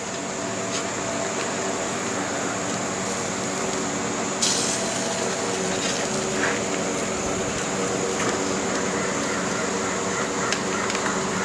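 A steady mechanical drone with several held tones under a thin, high, steady whine, and one sharp click about four and a half seconds in, with a few fainter ticks.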